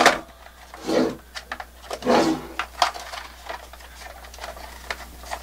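Handling noise from an airsoft P90 as a small battery is fitted into the back of the gun: a few irregular plastic knocks and clicks in the first three seconds, then softer rubbing.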